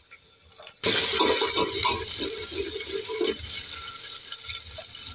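A metal spoon stirring and scraping a frying tadka of onions and spices in an aluminium pressure cooker. It starts suddenly about a second in with rapid scraping strokes, several a second for a couple of seconds, over the sizzle of the hot oil, and eases off toward the end.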